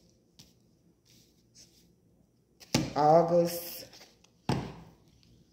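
A single sharp tap about four and a half seconds in, with a few faint clicks before it; a voice says one word in the middle.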